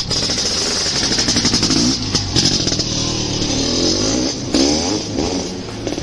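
A motor vehicle engine revving, its pitch rising and falling several times over an even firing pulse.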